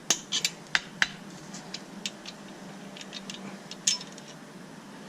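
Metal clinks and taps of a main bearing cap being worked loose from a Dodge Caliber SRT4 engine block and handled: a quick run of sharp clinks in the first second, then scattered lighter taps, with one louder clink about four seconds in.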